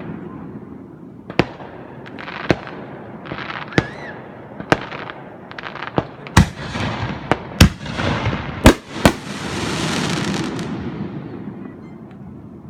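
Aerial fireworks bursting: a string of about nine sharp bangs at irregular intervals, with crackling between them. A long crackling swell near the end fades away.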